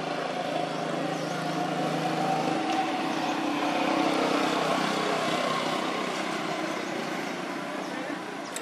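A motor vehicle's engine passing by. It builds to its loudest about four seconds in, with a low hum that shifts in pitch partway through, then slowly fades.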